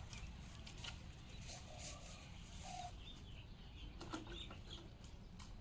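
Faint bird calls: a few short, low calls in the first half, then brief high chirps about three to four seconds in, with scattered light clicks.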